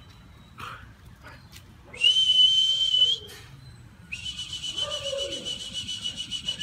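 A whistle blown twice: a short, loud, steady blast about two seconds in, then a longer, fluttering blast from about four seconds in, both high-pitched.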